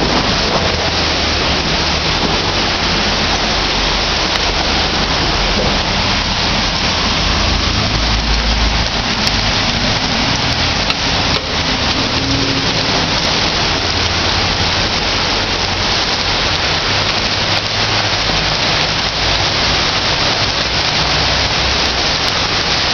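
Heavy rain pouring down on a street, a loud, steady hiss with no let-up.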